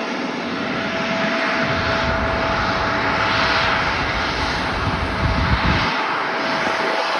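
Jet airliner engines at takeoff power: a broad rushing noise with a steady whine through it, and a deep rumble that swells from about a second and a half in and drops away about six seconds in.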